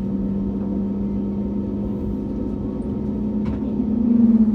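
Jet airliner engines running at taxi power, heard from inside the cabin: a steady hum over a low rumble, rising slightly in pitch and loudness near the end.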